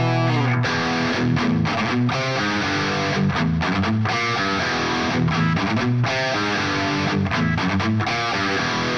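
Instrumental progressive metal passage led by distorted electric guitar: a choppy, stop-start riff of quickly changing notes.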